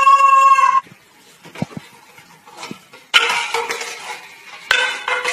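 A white cockatoo's loud, drawn-out screech at the start, then scattered light clinks and knocks. Harsh, noisy screeching and clatter follow in the second half.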